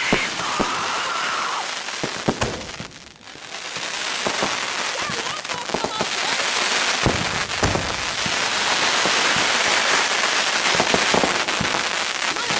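Fireworks going off many at once: a dense, continuous crackle of bangs with a short lull about three seconds in, then building again. This is a fireworks display set off uncontrolled, everything bursting at the same time.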